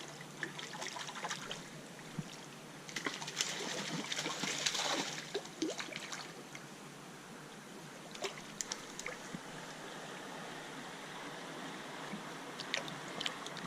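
Creek water running steadily, with bursts of splashing and sharp clicks from a landed trout being handled and unhooked in the water, loudest about three to five seconds in and again briefly near the end.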